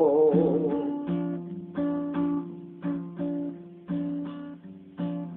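Acoustic guitar strumming chords in an even rhythm, each chord ringing and dying away. A man's held, wavering sung note trails off at the very start.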